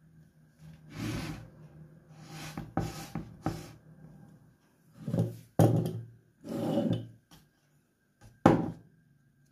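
A ceramic plate is slid, scraped and knocked on a wooden cutting board in a few short bursts. A sharp knock comes near the end.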